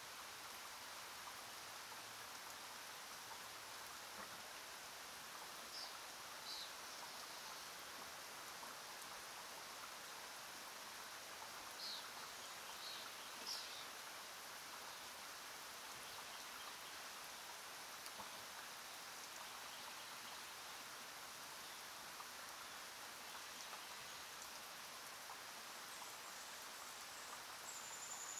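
Faint, steady scratching of a graphite pencil on paper as it writes, with a few short high squeaks about six seconds in and again around twelve to fourteen seconds.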